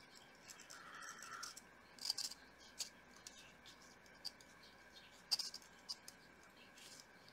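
Faint scattered clicks and light scratching from fingers handling a small photo-etched brass part while it is glued, over a faint steady background tone.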